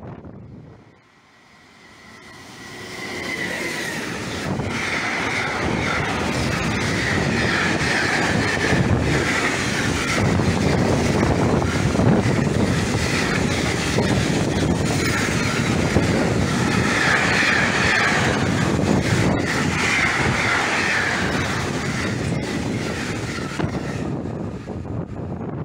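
A long freight train passing close by at speed. Its wagon wheels clatter steadily over the rail joints, with a high wheel squeal that comes and goes. The sound builds up about two seconds in and fades away near the end.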